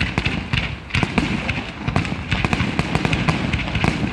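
Aerial fireworks display, a dense run of shell bursts and crackling bangs following one another several times a second.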